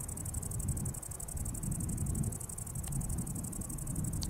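An insect, a cricket or grasshopper type, stridulating nearby in a rapid, evenly pulsed high buzz, over a steady low rumble.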